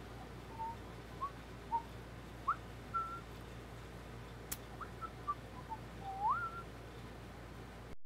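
A man whistling idly to himself in scattered short notes and little slides, with one long rising slide near the end. A single sharp click about halfway through.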